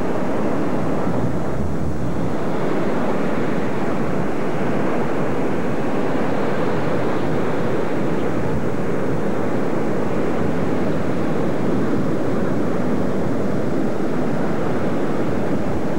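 Ocean surf breaking on a rocky shore: a steady rushing noise with no single wave standing out.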